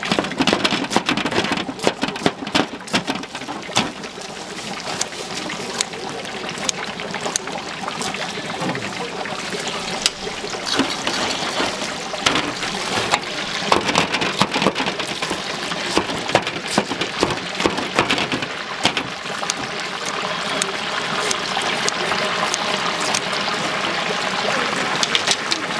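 Food deep-frying in a vat of hot oil, a steady sizzle with many sharp crackles and pops.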